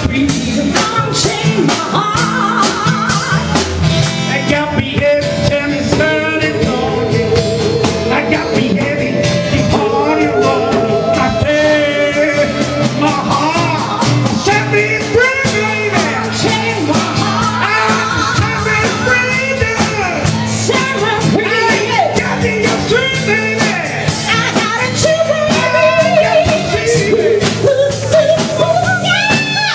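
Live band playing with drums and cymbals, a man singing into a hand-held microphone over it with a wavering, shouted vocal.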